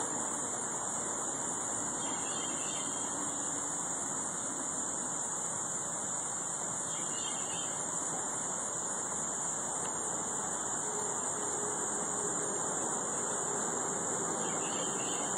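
Insects singing in a steady, high-pitched, unbroken drone over a low, even background hiss.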